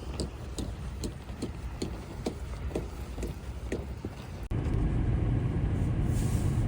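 A run of light, evenly spaced knocks, about two a second, typical of footsteps. Then, after a sudden cut about four and a half seconds in, the steady low rumble of a car driving, heard from inside.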